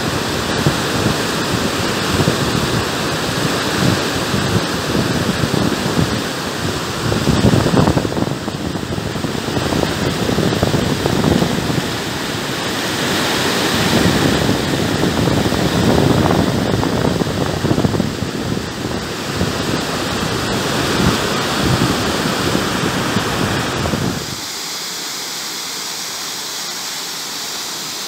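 Rushing water of mountain waterfalls and a rocky stream cascading over boulders, a loud steady roar. Near the end it changes abruptly to a thinner, lighter rush with little low rumble.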